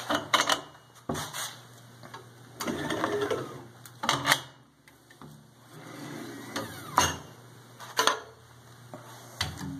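Home-made manual cylindrical screen printer at work: irregular metal clicks and knocks from the frame and drawer-slide carriage, with stretches of scraping as the flood bar and squeegee pass over the inked screen. Near the end the printed glass mason jar is lifted out of its cradle.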